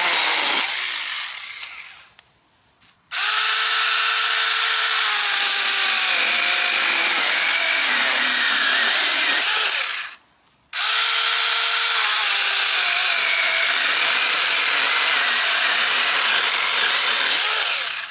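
Cordless mini chainsaws cutting a branch. The first saw's electric motor winds down about a second in. From about three seconds in, a second mini chainsaw runs through the wood with its whine sagging in pitch under load; it stops briefly about ten seconds in, then cuts again until just before the end.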